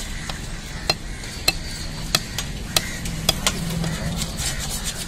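A large knife chopping through a pomfret on a wooden log block: about six sharp knocks, roughly one every half second, over a steady background hum.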